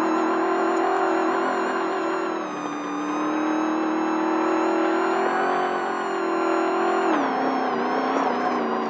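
Desert race truck engine running hard at high revs, easing off about two and a half seconds in, building again, then dropping sharply about seven seconds in as the driver lifts or shifts.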